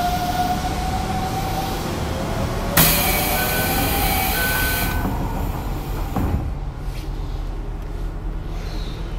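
Toei 5300 series subway train pulling away and accelerating. Its Mitsubishi GTO inverter whines, rising in pitch over a rumble of wheels and motors. About three seconds in, a sudden loud hiss cuts in and lasts about two seconds.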